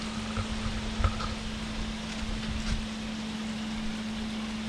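Wind buffeting the microphone in irregular low gusts, the strongest about a second in, over a steady low hum and a constant hiss.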